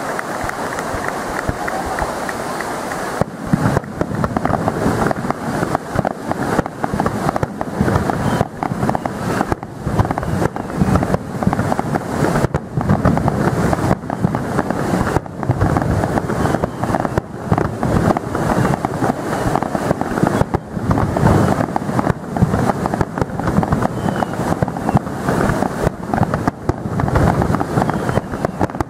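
Fireworks display: aerial shells bursting in a dense, irregular barrage of bangs and crackles, starting about three seconds in after a steady background hiss and going on thick and fast to the end.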